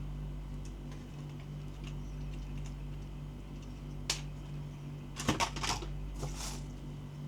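Handling clicks and rattles from unboxing a gel blaster: one sharp click about four seconds in, then a quick cluster of clicks and a short rustle, over a steady low hum.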